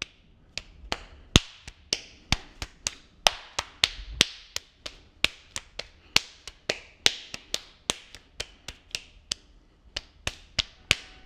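Hands slapping a ball of soft clay, patting it into a round shape: a run of sharp, irregular slaps, about three a second.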